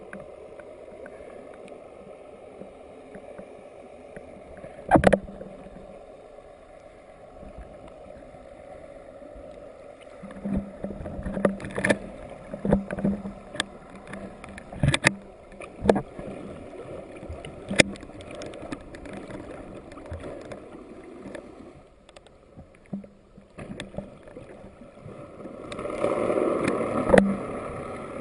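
Underwater sound picked up by a camera below the surface: a steady rushing hiss with scattered sharp clicks and knocks, and a louder rush of water near the end.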